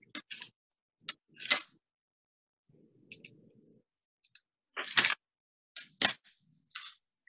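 Small pieces of cut glass clicking and scraping against a glass base sheet as they are set down and nudged into place: a handful of separate sharp clicks and short scrapes, the loudest about a second and a half, five and six seconds in.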